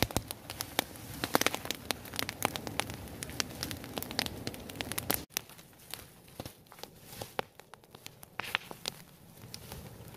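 Open fire of dry straw and leaves crackling and snapping as it burns, a dense run of sharp pops over a steady hiss. About five seconds in it drops suddenly to a quieter level with sparser crackles.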